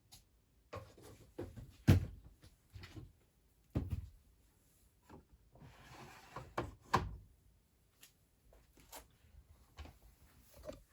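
Irregular knocks and clunks from a Beko WMD 46160 washing machine, the loudest about two seconds in and again near seven seconds, with a brief hiss shortly before the second.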